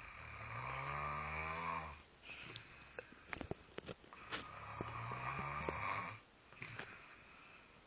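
A person asleep and snoring like a piglet: two long snores of about two seconds each, about four seconds apart, with a few faint clicks between them.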